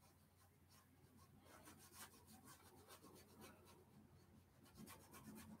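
Faint scratching of a small paintbrush working acrylic paint onto canvas: quick short strokes in two runs, one in the middle and one near the end.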